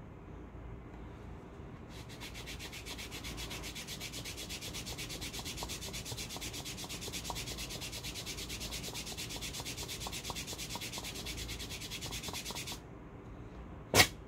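Quick, even rubbing strokes on a cold-wax hair-removal strip, starting about two seconds in and stopping abruptly. A single sharp click follows near the end.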